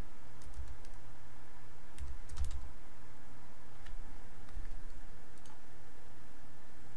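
Computer keyboard keys typed in a few short, scattered runs, over a steady low hum.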